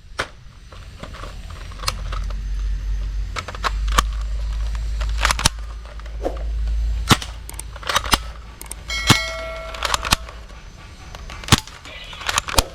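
Toy sniper gun firing: sharp cap-gun-like shots at irregular intervals, about a dozen in all, with a short electronic tone about nine seconds in.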